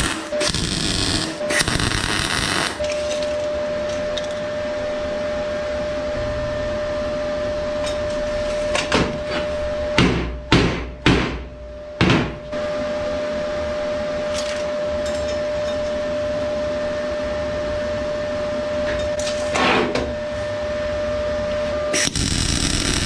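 MIG welding arc crackling and spitting in short runs at the start and again near the end. Between them, a handful of sharp metal clanks about ten seconds in, as the steel frame parts are handled, over a steady tone.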